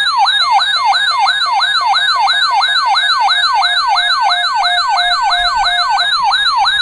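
Electronic emergency-alert tone: a siren-like wail made of rapid falling pitch sweeps, a little over three a second, repeating evenly and loudly as the attention signal of an Emergency Alert System weather alert.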